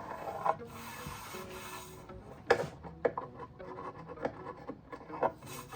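Woodworking clamps being loosened and taken off a glued oak backsplash: a handful of sharp clicks and knocks of clamp parts against wood, with rubbing and handling in between. Faint music plays underneath.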